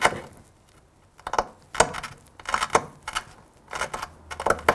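A flint fishhook being pressure-flaked against a wooden anvil with a hand-held pressure tool. Short clusters of sharp clicks and small snaps come about once a second as tiny flakes are pressed off the flint's edge during the final shaping of the hook.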